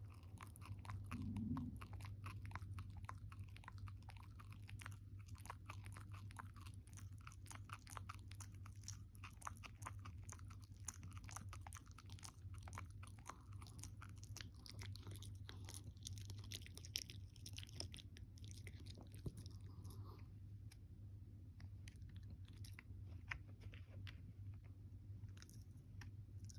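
A Shiba Inu gnawing a bone-shaped dog chew: a long run of small crunches and teeth clicks, irregular and fairly quiet, over a steady low hum.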